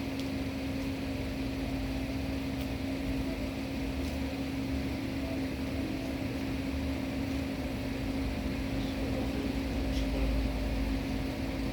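Steady mechanical hum with a constant droning tone and low rumble, and a few faint clicks.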